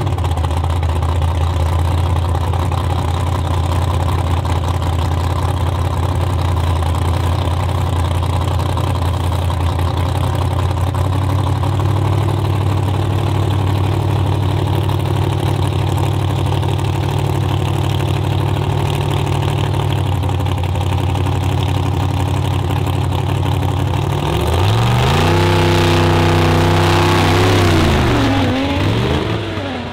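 Two drag cars, an older silver car and a purple Nissan GT-R, idling side by side at the start line with a steady low rumble. About 24 seconds in they launch at full throttle, and the engines rev up and drop back several times through the gear changes as the cars accelerate away past the listener.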